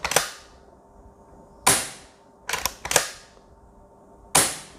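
Sharp metallic clacks from working the pump action of a Hatsan AT44 PA pump-action PCP air rifle, about five of them at irregular intervals, some in quick pairs, each ringing briefly.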